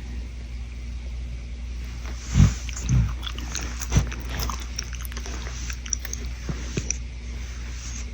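Shetland Sheepdog giving two short, low snoring breaths about two and a half seconds in, then a few seconds of small clicking mouth noises.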